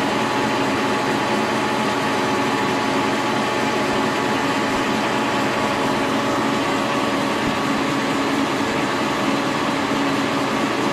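Brown & Sharpe No. 2 horizontal milling machine running, its 50-taper spindle turning a 5-inch Wohlhaupter boring and facing head: a steady mechanical hum with a few constant tones.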